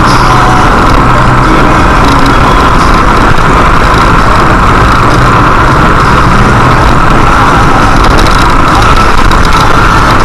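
Loud, steady road and engine noise of a car cruising on a highway, picked up by a dashcam inside the cabin.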